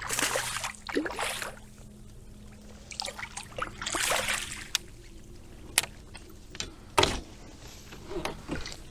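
Water splashing around a kayak in short bursts, with a few sharp knocks on the hull.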